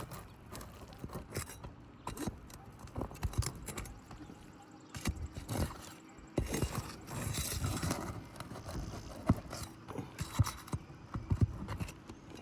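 Irregular knocks, clicks and scrapes of hand tools working on roof shingles as a damaged shingle is worked loose, with a longer scraping stretch past the middle.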